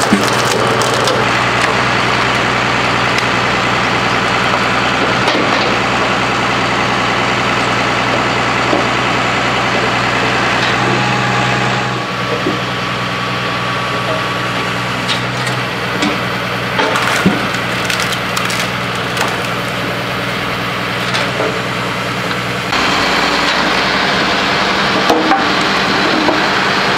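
Tractor diesel engine running steadily to power a hydraulic log splitter, with sharp cracks and snaps of logs splitting, most of them in the middle part.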